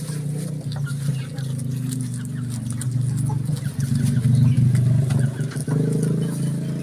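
A steady low engine hum, like a motor running, somewhat louder about four to five seconds in, with a few faint clicks.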